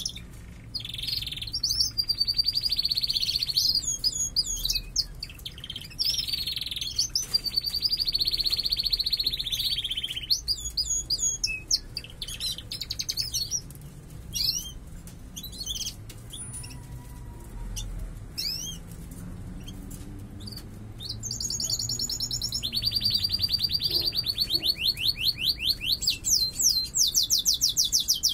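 Domestic canary song: long, fast rolling trills broken by short chirps and sweeping notes, with a quieter spell of scattered chirps in the middle and a run of fast repeated notes near the end. It is the loud morning song of birds in breeding condition.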